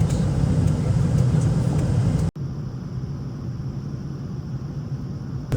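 Steady low rumble of a vehicle in motion, heard from inside. About two seconds in it cuts off abruptly and resumes quieter.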